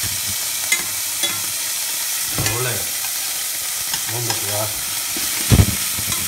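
Strips of pork fillet sizzling and frying in hot oil in a stainless steel saucepan, spattering a little as the meat gives off its juice. Metal tongs click against the pan a few times as the pieces are turned, and a low knock sounds near the end.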